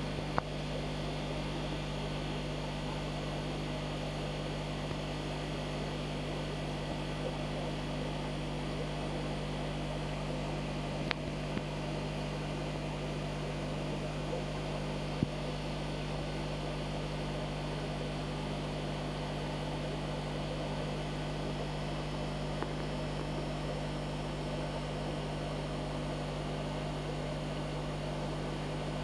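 Steady low mechanical hum with a constant hiss, broken by a few brief ticks.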